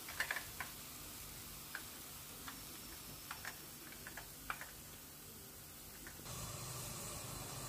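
Faint, scattered ticks and small crackles from the pan of hot frying oil and the freshly fried turkey wings resting beside it, over a low steady hum. About six seconds in, the background hum and hiss step up.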